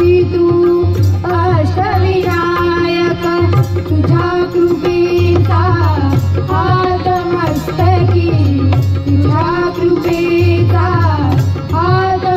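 Indian devotional music: a melody that bends in pitch over a held drone, with a steady tabla rhythm.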